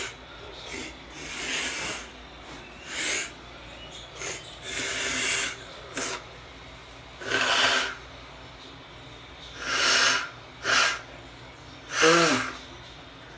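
A man sniffing and breathing out hard after a sneeze: about ten short breathy bursts spaced out over several seconds. The last and loudest, near the end, carries a brief voiced grunt.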